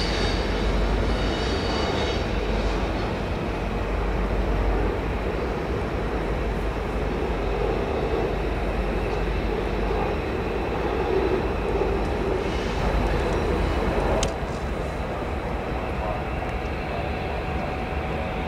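Freight train rolling past close by: a steady rumble and clatter of coal cars' steel wheels over the rails and switches, with diesel locomotives. The sound drops suddenly about 14 seconds in, and a faint steady hum comes in near the end.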